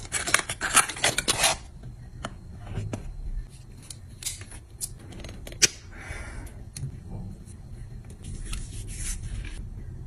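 Paperboard product box being handled and opened: crisp rustling and scraping of card for about the first second and a half. Then scattered light clicks and rubbing as a plastic cosmetic tube is handled, with one sharp click about five and a half seconds in.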